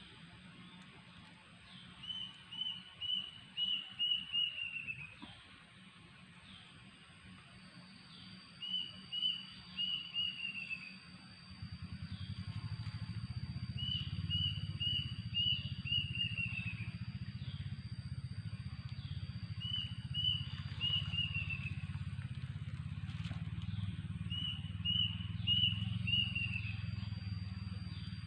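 A bird calling in repeated phrases of five or six short notes that step down in pitch, a phrase about every six seconds. A steady high whine runs underneath, and a low rumble comes in about eleven seconds in.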